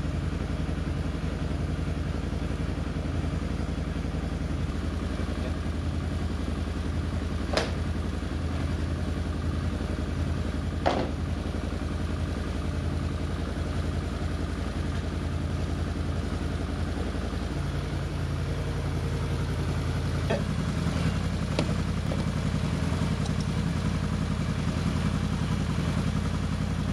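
Can-Am Outlander 650's V-twin engine idling steadily, left running to warm up. Two sharp clicks about a third of the way in, and a few fainter ones later, come from plastic body-panel fasteners and panels being worked loose.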